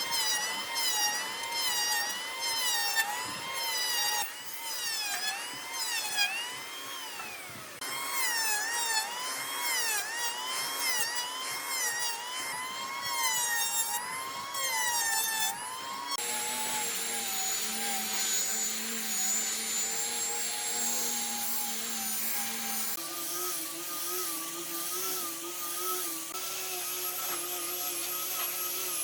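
A high-pitched power tool whining as it works wood. For the first half its pitch keeps dipping and rising; about halfway through it changes abruptly to a steadier tone, and the tone shifts again near the end.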